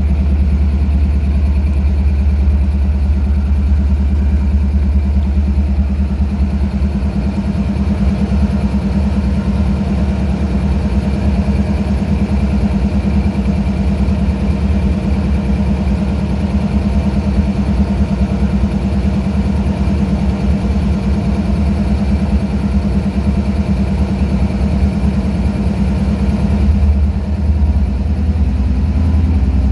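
Diesel locomotive's air compressor pumping with a fast, steady chugging beat over the engine's running. A faint rising tone comes in near the end.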